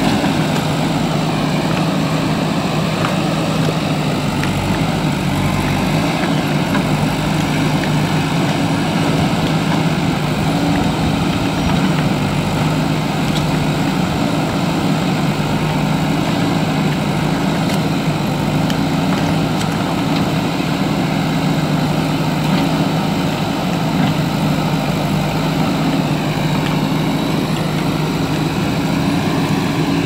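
JCB backhoe loader's diesel engine running steadily at low throttle.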